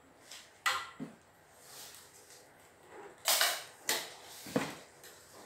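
Sharp plastic clicks and knocks from the parts of a portable embroidery machine being handled and fitted together: a click under a second in and another just after, a short scrape around three seconds in, then two more knocks.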